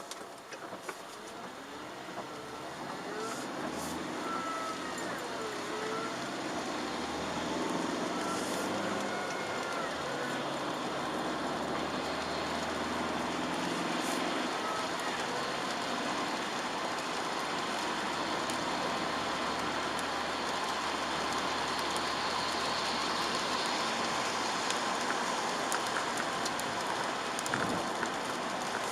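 Chevrolet Aveo with a 1.4-litre petrol engine driving on a wet road, heard from inside the car: tyre hiss and a low engine hum that build over the first several seconds as it gets moving, then hold steady.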